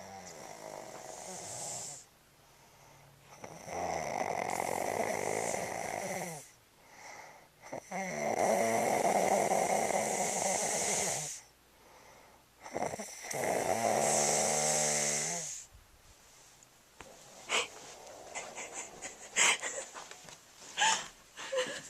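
Four long, rasping snores, each lasting two to three seconds, with short pauses between them. Then, for the last few seconds, a scatter of short clicks and small taps.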